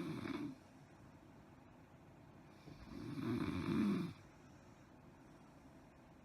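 A woman snoring loudly in her sleep. The tail of one snore ends just after the start, then a second snore comes about three seconds in, growing louder over about a second and a half before it stops.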